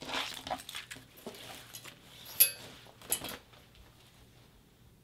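Papers and small objects handled on a table: rustling and light knocks, a sharp clink about two and a half seconds in, and a couple more knocks just after.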